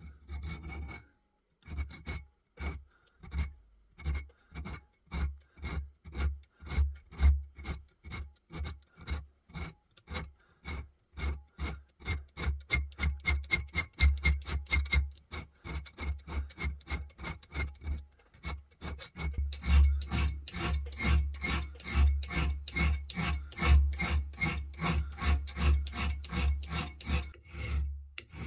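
Hand file rasping back and forth across a steel mainspring clamped in a vice, thinning the spring down from its marked step. The strokes are steady, about two a second at first and quickening to about three a second in the last third, each with a faint ringing note.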